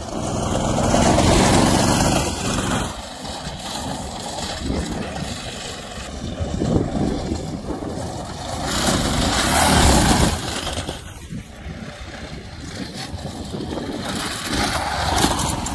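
Small engines of a minibike and a go-kart running and revving as they ride over rough ground. The sound swells louder about a second in and again near ten seconds in.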